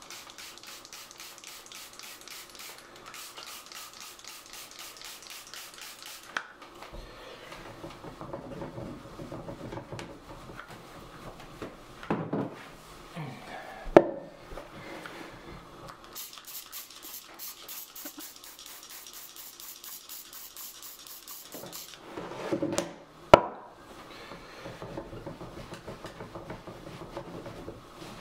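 Rapid scrubbing of a wine stain on a carpet sample, in two long runs of quick back-and-forth strokes with rustling in between. Two sharp knocks on the wooden tabletop, about halfway and about two-thirds through, are the loudest sounds.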